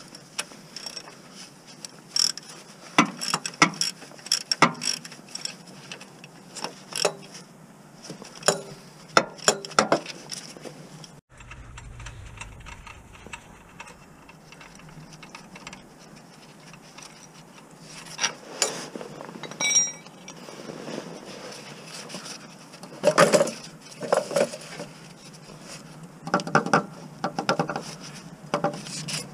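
Hand tools working on metal fasteners under a car around the gearbox and driveshaft: irregular clicks, clinks and knocks, with a busier run of clicking near the end.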